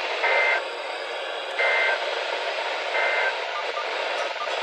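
NOAA Weather Radio SAME digital data bursts: three short, identical two-tone chirps about a second and a half apart over radio static. Their shortness marks them as the end-of-message code that closes a broadcast alert.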